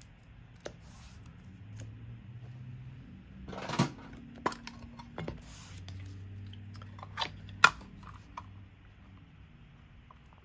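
Magic: The Gathering cards and their wrappers being handled at a table: scattered light clicks and rustles, with a louder rustle about four seconds in and a sharp click near eight seconds. A faint low hum comes and goes underneath.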